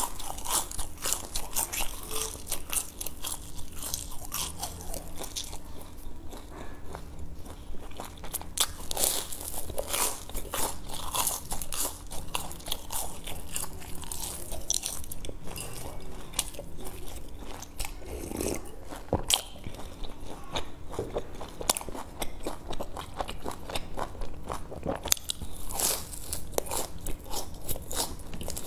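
Close-miked crunching and chewing of a fried sesame ball (jian dui), its crisp hollow shell cracking in many sharp crunches one after another.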